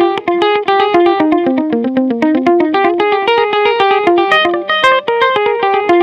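Fender Custom Shop 1956 Stratocaster electric guitar played with a clean tone through an Echoplex EP-3 tape echo: a fast, continuous run of single picked notes.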